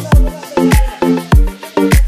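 Background dance music with a steady kick-drum beat, about five beats every three seconds, over a bass line and light percussion.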